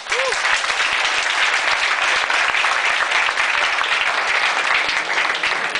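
A roomful of people applauding: dense, steady clapping that eases off slightly near the end, with a short whoop just after the start.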